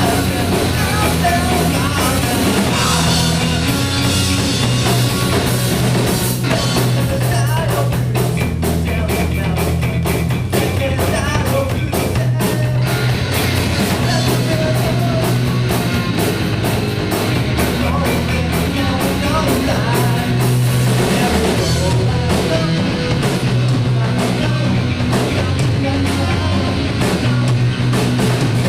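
Loud live rock music: a band with drum kit and bass playing, with singing.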